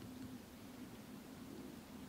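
Faint, steady hiss of light rain falling in woodland, with a low steady hum underneath.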